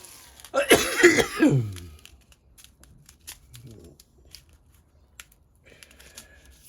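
A man coughing, a short bout of about a second and a half starting about half a second in, followed by faint clicks and rustles of handling.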